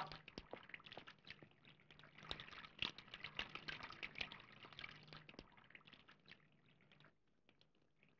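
Faint, irregular clicks and clinks of dishes and utensils being handled at a meal, over a low steady hum. The sound cuts off to near silence about seven seconds in.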